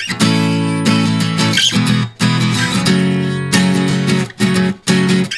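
Background music led by strummed guitar chords, changing chord about every second.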